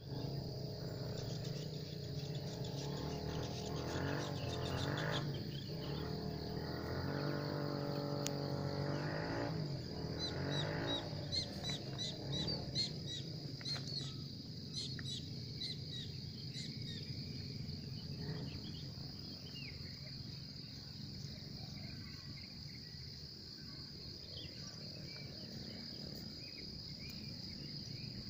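Insect chorus: a steady high-pitched drone throughout, with a run of short chirps about ten to seventeen seconds in. For roughly the first ten seconds a low hum with several pitches sits underneath.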